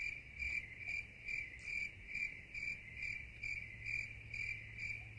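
Cricket chirping in a steady, high pulsing rhythm of about two chirps a second, over a faint low hum.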